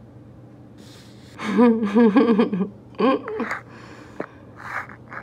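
A woman's voice making wordless, sing-song sounds with a wavering pitch, in two stretches, with breathy sounds around them and a short click near the end.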